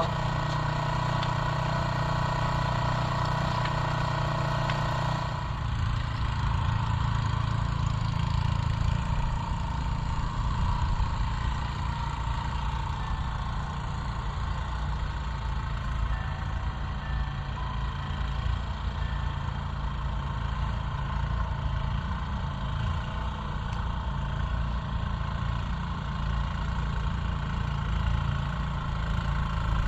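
The 3.5 hp Briggs & Stratton engine of a Gilson-built 1979 Montgomery Ward snowblower running steadily while it throws wet, slushy snow. Its sound changes about five seconds in, losing some of its higher part.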